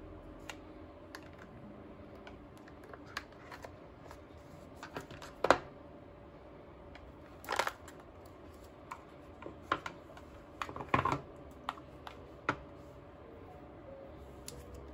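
Handling of Apple Pencil packaging: long fingernails tapping and clicking on the cardboard box and the plastic pencil as the box is slid open and the pencil lifted from its tray. Scattered light taps and short scrapes, with louder clicks about five and a half, seven and a half and eleven seconds in.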